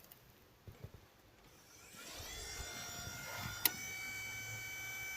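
Honda CR-V cabin blower fan motor starting up about two seconds in, its whine rising as it spins up and then running steadily, with a sharp click partway through and another at the end as it starts to wind down.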